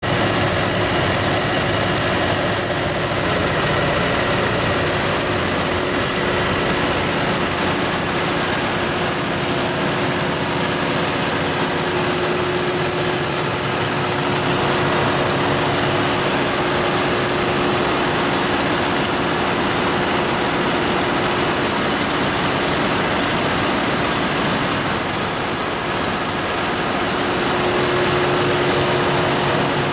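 MTU/Detroit Diesel 12V4000 V12 diesel engine of a 1650 kW generator set running at a steady speed: loud, even engine noise with a steady high whine over it.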